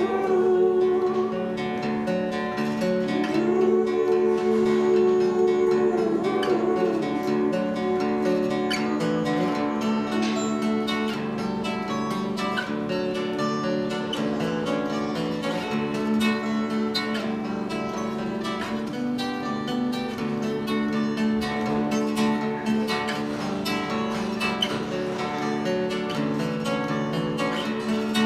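Two acoustic guitars played live in an instrumental passage of a song, strummed and picked together, the strumming growing busier about halfway through.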